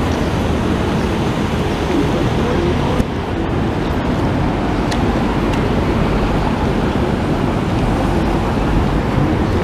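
City street traffic noise: a steady, loud rumble of passing vehicles, with a brief click about three seconds in.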